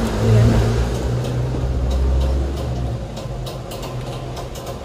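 Low, steady rumble like a running vehicle, easing off about three seconds in, with faint irregular clicks over it.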